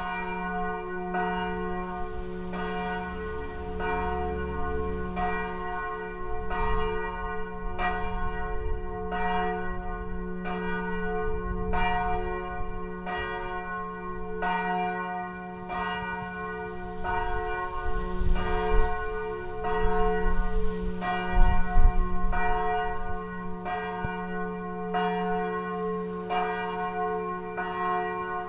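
Middle-sized church bell ringing steadily for mass, about one stroke a second, its hum carrying between strokes. A low rumble rises under it about two-thirds of the way through.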